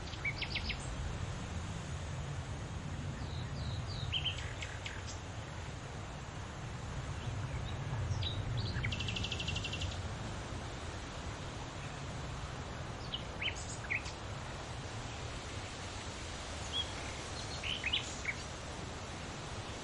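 Wild birds chirping in short, scattered calls over a steady rush of wind through leaves. About nine seconds in, a rapid, evenly pulsed trill lasts for about a second.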